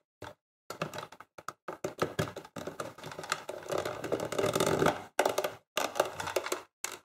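Plastic clicks, scrapes and rattles as the reflector head of a BN-1-003 signal lantern is pressed and turned onto its plastic body. The handling comes in short clicks, with a denser run of scraping about halfway through.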